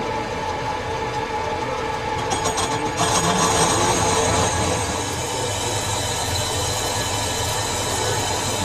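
Lathe turning a steel part: the cutting tool screeches against the metal with a ringing, squealing edge over the machine's low hum, getting louder about three seconds in.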